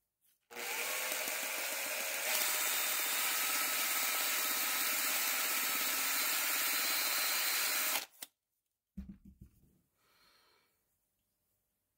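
Power drill spinning a sandpaper-wrapped rod inside a small stainless steel sleeve, sanding its bore clean of glue. It runs steadily for about seven and a half seconds, a little louder after about two seconds, then stops suddenly, followed by a few faint handling knocks.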